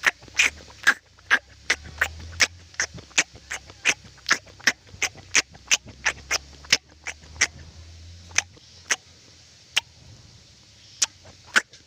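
Close-up chewing of sweet corn kernels: a steady run of crisp, wet clicks at about three a second, pausing briefly near the end. A low hum sits underneath until about two-thirds of the way through.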